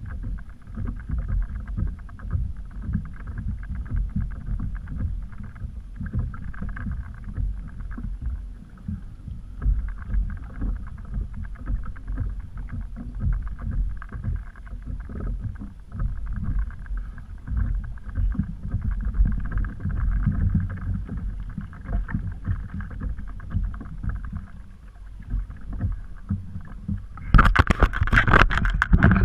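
Water lapping and sloshing against a kayak hull, picked up as a steady, uneven low rumble through a mounted action camera. About 27 seconds in it gives way to loud, sudden handling noise as the camera is moved.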